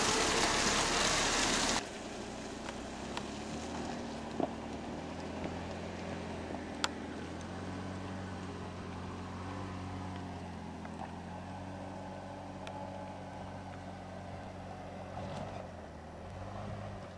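A loud rushing noise for about the first two seconds, as a Jeep Wrangler passes close by, stops abruptly. Then comes the Jeep's engine heard from a distance, a steady low drone that rises and falls slightly as it climbs a steep dirt hill, with a couple of sharp clicks.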